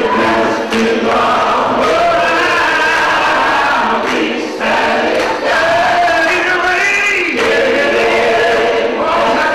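Gospel choir singing together, with a male lead singer on a microphone out front.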